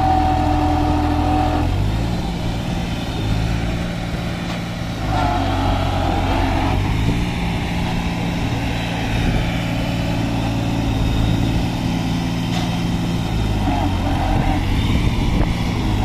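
New Holland 3630 4x4 tractor's three-cylinder diesel engine labouring under load as it drives up a loose sand slope. The revs rise about two seconds in, sag around five seconds, climb again at about seven seconds and hold, then drop back near the end.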